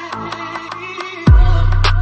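Background electronic music with a ticking beat; just past halfway it becomes much louder as deep, falling bass hits come in.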